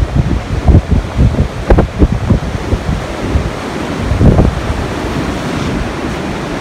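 Wind buffeting the microphone in irregular low gusts over the steady wash of ocean surf breaking on the beach.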